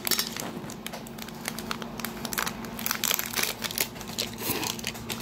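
Glossy plastic snack pouch crinkling and crackling in the hands as it is handled and opened, with many irregular crackles.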